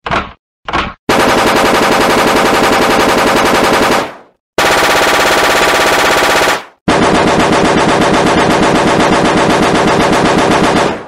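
Automatic gunfire sound effect: two single shots, then three long bursts of rapid automatic fire separated by short breaks, the last lasting about four seconds.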